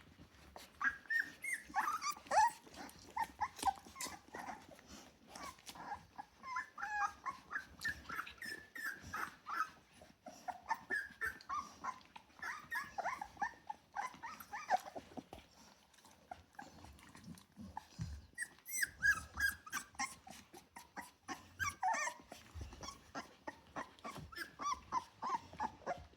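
Three-week-old Rottweiler puppies whining and squeaking: many short, high, wavering calls overlapping in clusters, with light scuffling clicks in between.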